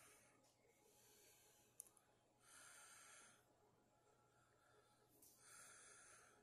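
Near silence with a man's faint breathing: two soft breaths about three seconds apart, and a small tick just before the first.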